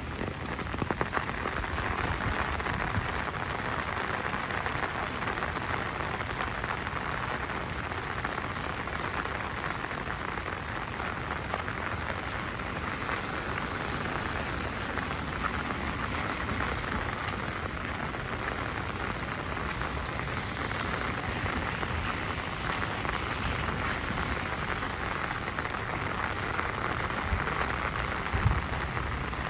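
Steady rain falling, a dense, even patter of drops, with one louder tap near the end.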